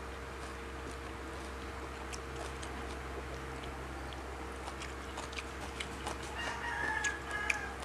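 Chewing and biting of crisp raw vegetables, with scattered small crunches and mouth clicks over a faint steady hum. About six seconds in, a rooster crows once, a call of about a second and a half.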